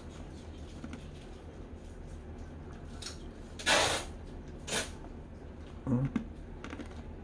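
Eating noises from a cup of shaved-ice bingsu: two short scraping or slurping sounds about halfway through and a soft low knock a second later, over a low steady hum.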